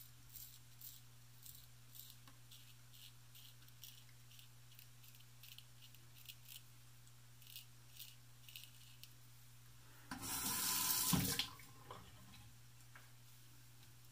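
Short scraping strokes of a Wade & Butcher 7/8 full-hollow straight razor cutting stubble through lather, about two a second, stopping after about nine seconds. About ten seconds in, a bathroom sink tap runs for a second and a half. A steady low hum underneath.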